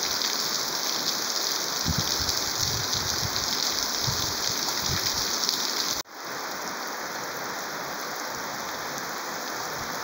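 Heavy rain pouring down on open ground, a steady dense hiss. About six seconds in it breaks off abruptly and goes on as another stretch of rain, a little quieter.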